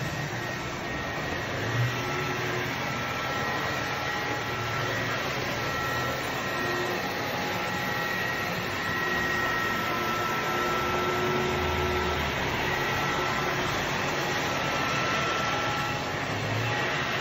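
Lindhaus LW46 Hybrid floor scrubber running with its brush motor and water pump on as it is pushed across a wet hardwood floor. It makes a steady whir with suction noise, and faint whining tones come and go.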